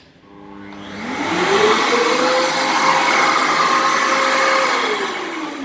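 1600 W wet-and-dry vacuum cleaner motor switched on, spinning up over about a second to a steady whine with a strong rush of air, running for about three seconds, then switched off and winding down near the end.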